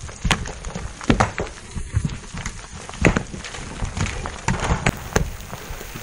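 A run of irregular knocks and thuds, about two a second and uneven in loudness, over a low rumbling noise.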